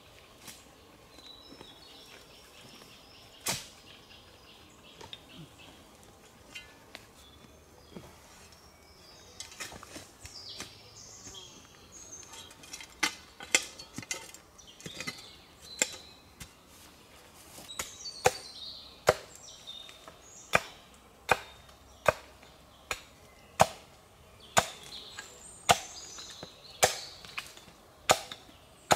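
Axe chopping wood: a few scattered blows, then steady strokes about once a second from roughly halfway on. Birds chirp between the strikes.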